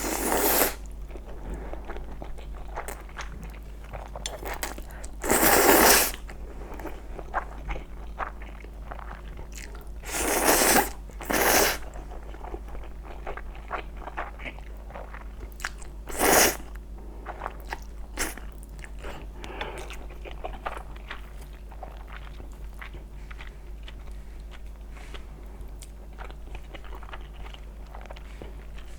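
Close-miked eating sounds: steady chewing with small wet mouth clicks, broken by five louder noisy bites or slurps of about half a second to a second each, at the start and around five, ten, eleven and sixteen seconds in. A low steady hum runs underneath.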